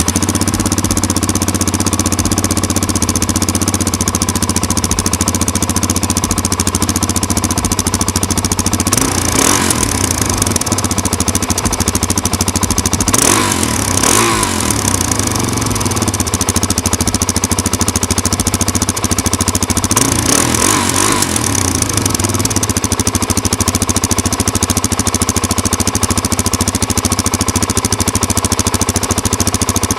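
Suzuki DR-Z400's single-cylinder four-stroke engine running warm at idle through its stock exhaust, with a few short throttle blips about a third of the way in, near the middle, and about two-thirds through.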